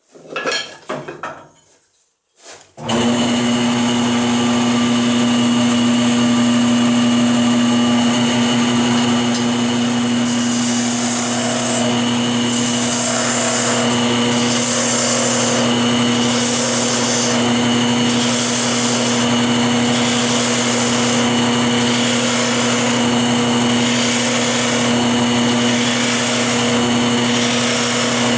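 A few light clinks, then a wood lathe switches on about three seconds in and runs with a steady motor hum. From about ten seconds in, a turning tool cuts beads into the spinning hickory, a hiss of shavings rising and falling about once every second and a half.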